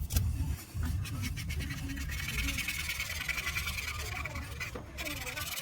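Pencil scratching on paper in quick, dense strokes, growing busier from about two seconds in, as when shading.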